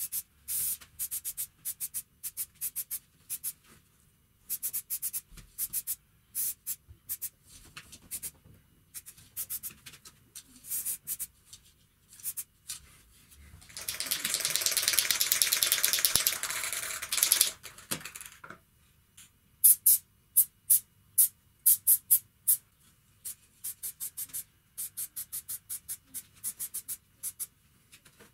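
Aerosol spray can spraying paint in many short bursts, with one longer spray of about four seconds in the middle.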